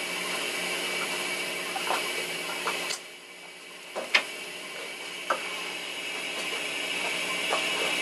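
Steady hum of the yacht's running generator and watermaker, with a few sharp plastic clicks and knocks as detergent bottles are opened and set down on the washing machine's top. The loudest knock comes about four seconds in.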